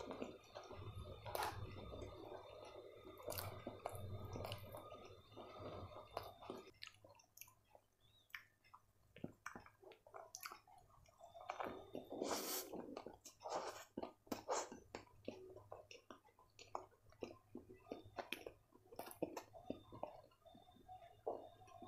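Close-up chewing with wet mouth sounds for the first six seconds or so, then sparser crunches, clicks and rustles as crispy fried noodles, likely Chinese bhel, are picked up by hand and eaten. One loud crunchy bite comes about halfway through.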